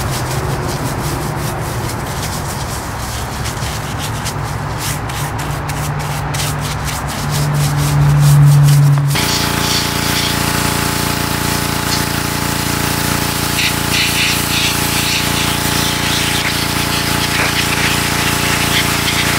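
A stiff brush scrubbing a greasy transmission case in repeated strokes; about nine seconds in, a pressure washer starts, its pump running steadily under the hiss of the jet hitting the aluminium case.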